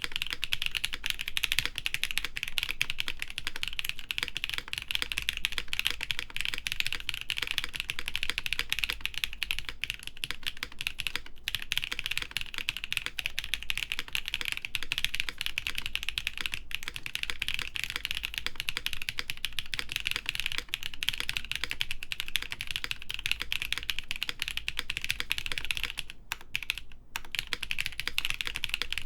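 Continuous fast typing on a Gray Studio Think 6.5 v3 mechanical keyboard with lubed Designer Studio Graphite Gold linear switches on an FR4 plate, GMK keycaps, a dense stream of key clacks. The typing breaks off twice, briefly, near the end.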